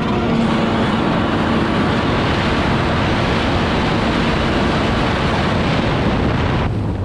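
1997 Yamaha Superjet's 701 two-stroke twin with a factory-mod B pipe, held at high revs as the ski runs across flat water, over a steady rush of spray and wind. Near the end the throttle comes off and the engine note drops.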